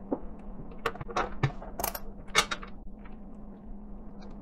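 Multimeter test probes being pushed into and fitted on a small circuit-board test jig's terminal posts: several short clicks and scrapes of metal and plastic, over a faint steady hum.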